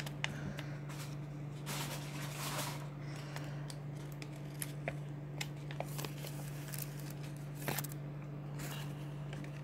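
Toy packaging and paper being handled: rustling with scattered light clicks and taps, over a steady low hum.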